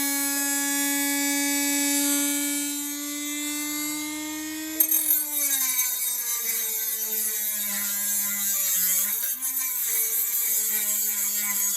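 Small high-speed rotary cutting tool whining at free speed, then cutting into the mower's exhaust pipe about five seconds in: a harsh grinding hiss sets in and the pitch drops and wavers under load.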